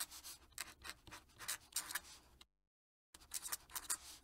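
Fountain pen nib scratching across paper in a run of short, quick strokes as cursive is written. The sound is faint, and it cuts out completely for about half a second partway through before the strokes resume.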